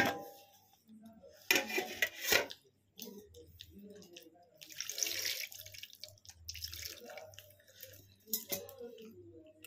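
Water being poured from a stainless steel vessel, in a couple of short pours about five and seven seconds in, with a sharp knock of the metal near the start.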